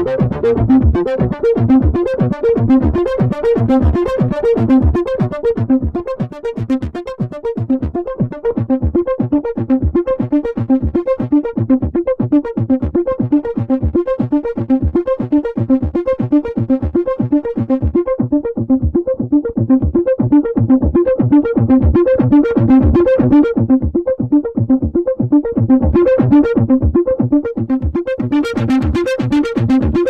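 Behringer Poly D analog synthesizer playing a fast sixteenth-note sequence of repeating notes. As the filter knobs are turned, the tone grows duller in the middle and brightens again near the end.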